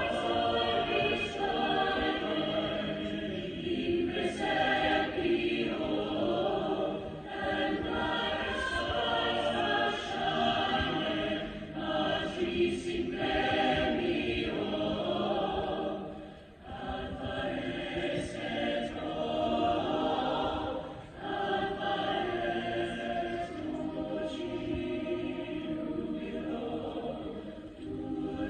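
A choir singing sustained phrases, with short breaks between phrases a little over halfway through.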